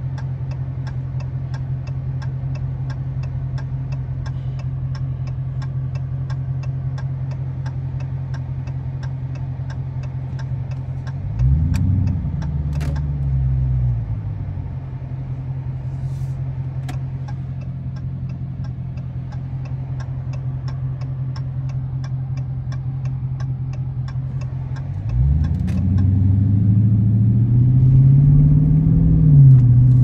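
2021 Dodge Scat Pack's 6.4-litre HEMI V8 idling steadily, with a rapid even ticking of the turn-signal indicator over the first twelve seconds. About twelve seconds in the engine rises briefly and falls back to idle; from about twenty-five seconds it accelerates hard and loud, its pitch climbing with one dip at an upshift near the end.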